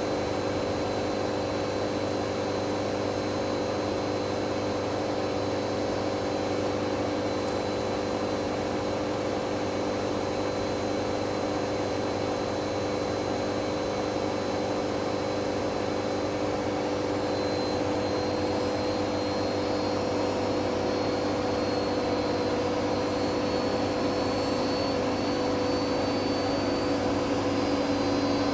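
Hoover Dynamic Next washing machine on a spin-only cycle, its drum and motor spinning with a steady whine. About halfway through a faint high whine starts rising in pitch, and the sound grows slightly louder toward the end.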